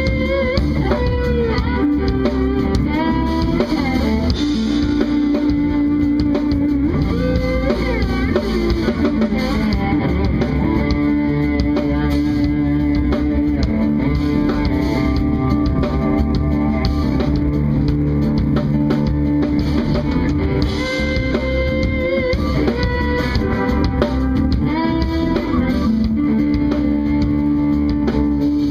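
A live band playing an instrumental tune: an electric guitar carries the melody with sliding, bent notes over a drum kit and bass.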